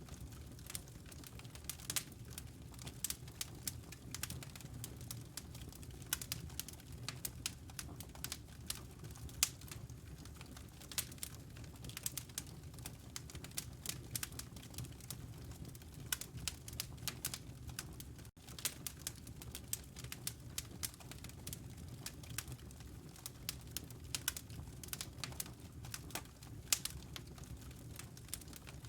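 Fire crackling in a fireplace: many irregular sharp pops and snaps over a steady low rumble, with a split-second break about two-thirds through.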